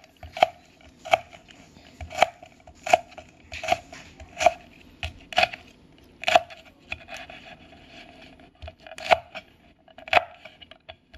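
Chef's knife slicing Thai chili peppers on a wooden cutting board: a sharp knock each time the blade meets the board, about once a second, with a pause of about two seconds past the middle.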